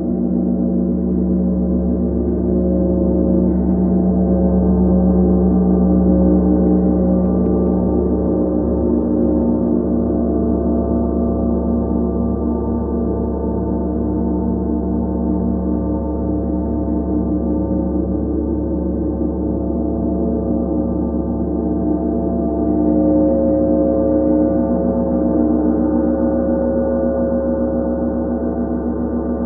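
32-inch Tree of Life gong played with a soft mallet: a dense, sustained wash of deep, layered tones with a long sustain. It swells a few seconds in and again about three-quarters of the way through.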